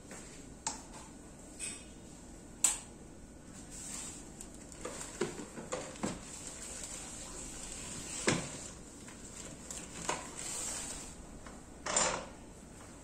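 Irregular clicks and knocks of hard plastic office-chair parts being handled and fitted, an armrest being set against the seat base, with the sharpest knocks about two and a half and eight seconds in.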